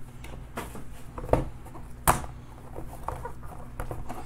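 Hands handling trading card boxes and hard plastic card holders on a table: soft handling noise broken by small clicks and knocks, with two sharper knocks a little past the first second and again about two seconds in. A steady low hum runs underneath.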